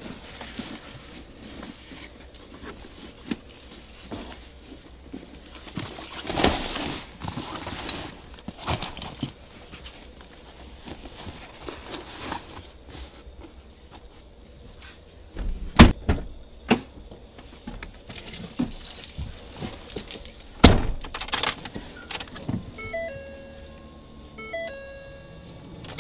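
Bags and gun cases being loaded onto a pickup truck's back seat: rustling and knocks, with two loud thumps about sixteen and twenty-one seconds in. Near the end the truck's warning chime sounds a few repeated tones.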